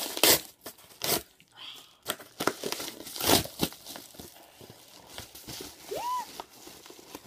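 Yellow Amazon padded mailer being torn open by hand: paper ripping and crinkling in several sharp bursts, the loudest about three seconds in, then softer rustling of the envelope. A brief high-pitched vocal squeak about six seconds in.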